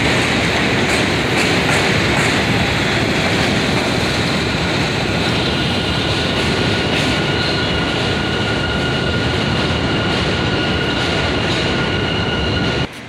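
New York City subway train running along the station tracks: a steady rumble and rattle of steel wheels on rail, with clicks over rail joints in the first couple of seconds. About five seconds in, a steady high-pitched wheel squeal joins it. The sound cuts off suddenly near the end.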